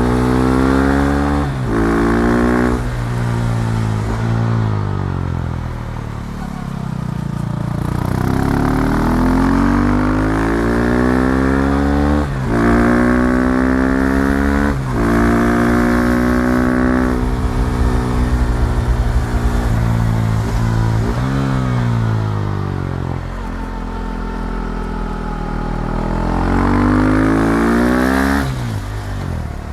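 KTM Duke 390's single-cylinder engine accelerating through the gears, its pitch climbing and then dropping abruptly at each upshift. Quick shifts come in the first few seconds, again at about twelve and fifteen seconds, and once near the end. In between it eases off with the pitch sinking, then builds again.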